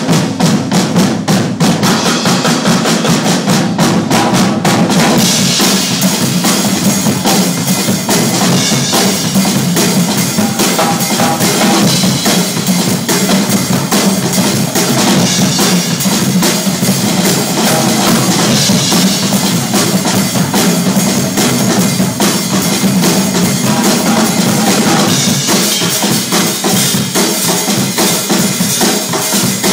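A group of drummers playing live percussion together, a loud, dense, fast rhythm of bass drum, snare and rim hits that carries on without a break.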